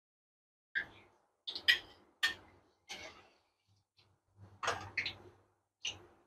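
A steel slotted skimmer knocking against the rim of a kadhai and onto a plate as fried paneer balls are lifted out of the oil: a series of short clinks and knocks at irregular intervals.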